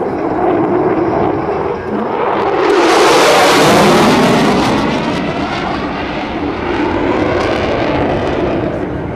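F-16 Fighting Falcon jet passing low overhead, its engine noise swelling to its loudest and brightest about three seconds in with a sweeping, falling whoosh, then slowly fading as the jet climbs away.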